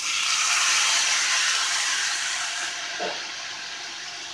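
Boiled, drained black chickpeas tipped into a hot iron wok of fried onion and coconut masala, hissing as they hit the pan. The sizzle is strongest at first and slowly dies down, with one light knock about three seconds in.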